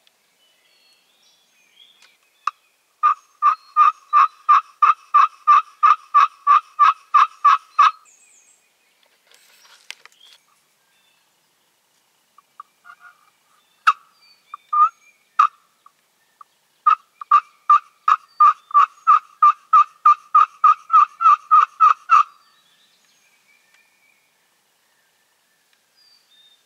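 Turkey yelps: two long runs of rapid, evenly spaced notes, about three or four a second and each about five seconds long, with a few single notes between the runs.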